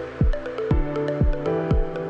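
Electronic background music: a steady kick drum about twice a second under held synth chords, with light hi-hat ticks between the beats.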